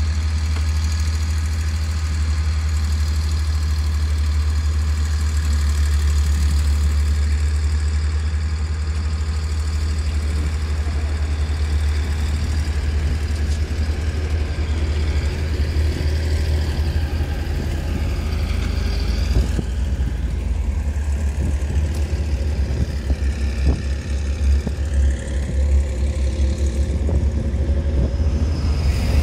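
Vehicle engine heard from inside the cab, running with a steady low hum while stationary. About ten seconds in, the vehicle moves off along the rough dirt track and the sound turns into an uneven rumble with repeated knocks and rattles.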